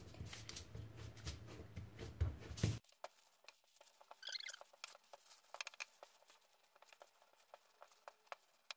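Hands patting and pressing date paste on baking paper, then a wooden rolling pin working it out on the paper: soft taps and light paper rustling. The sound is quieter after about three seconds in.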